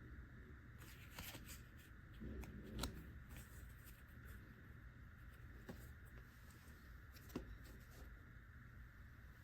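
Faint rustle and flick of Pokémon trading cards being slid one behind another through the hands, with a few sharper taps, the clearest about three seconds in and again past seven seconds.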